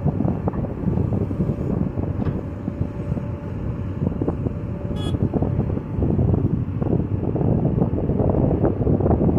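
Diesel engine of heavy earthmoving machinery running, with wind buffeting the microphone and scattered small knocks. A short high squeak about five seconds in.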